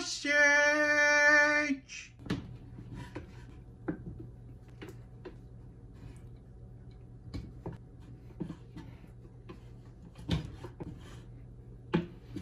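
A voice sings one held note for nearly two seconds. Then faint scattered clicks and creaks over a low steady hum as a vertical piston sausage stuffer pushes ground filling through its nozzle into a casing.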